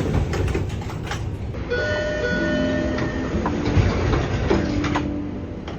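MBTA Orange Line subway car door chime: a few steady tones sounding over the rumble of the train, with some sharp clicks.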